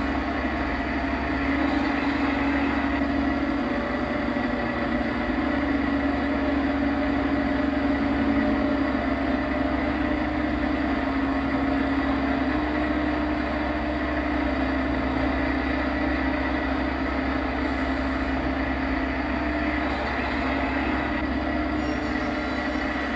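A steady machine hum with a low whining tone that steps up and down in pitch a few times.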